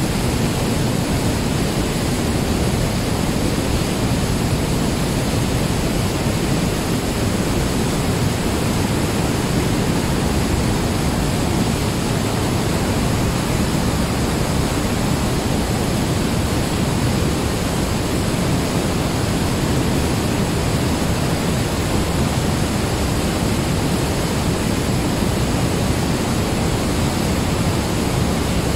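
The Weissbach mountain stream rushing through a narrow limestone gorge as white water: a steady, loud rush with no break.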